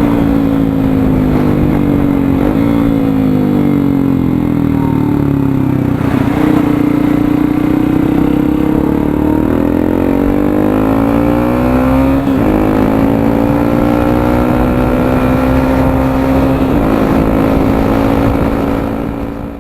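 Yamaha XTZ 150 Crosser's single-cylinder four-stroke engine running through a Roncar aftermarket exhaust, its note sinking slowly and then climbing again over several seconds. It breaks off briefly about twelve seconds in and again a few seconds later, then fades out at the very end.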